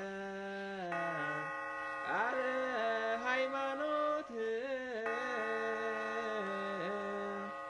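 A solo voice chanting an Eritrean Orthodox Tewahedo hymn in long held notes that step up and down, with a quick wavering ornamented run about two to three seconds in.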